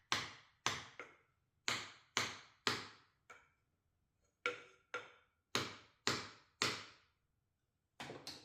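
A series of light, sharp taps or knocks, about two a second in runs with short pauses, each with a short ring as it dies away.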